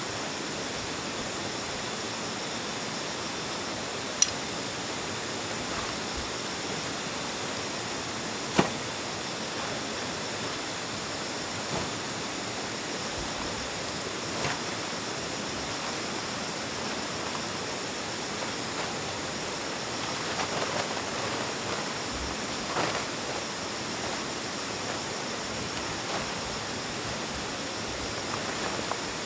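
A steady hiss of background noise, broken by two sharp knocks about four seconds apart and a few fainter taps later on.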